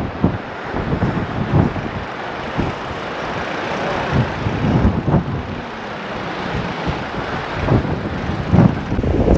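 Wind rushing over the microphone of a camera riding along a rocky dirt trail on a mountain bike, with uneven low thumps from the bumps and tyres on loose ground.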